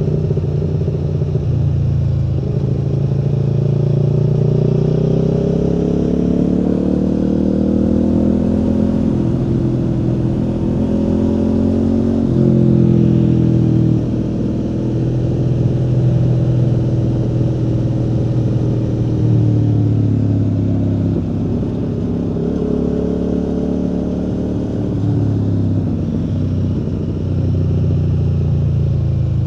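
Aprilia Tuono V4 motorcycle's V4 engine under way, its pitch climbing and falling as the bike accelerates and eases off, with a sudden drop in pitch about twelve seconds in.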